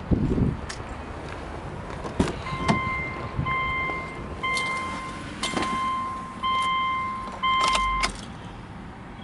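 Subaru Legacy's in-cabin warning chime beeping steadily, six beeps about a second apart, sounding while the driver's door is open, then stopping about eight seconds in. A low thump and handling noise at the start and a few sharp clicks from the door and keys.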